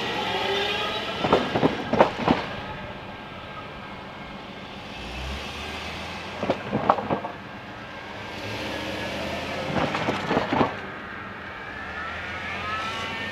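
Cars and a van driving over a railroad grade crossing, their tyres thumping over the rails in three quick clusters, with engines passing and pulling away.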